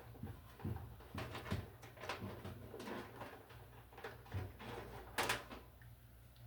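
Light rustling and irregular clicks of stiff electrical wires being handled and pushed aside, with a few soft low thuds and one sharper click about five seconds in, over a faint steady hum.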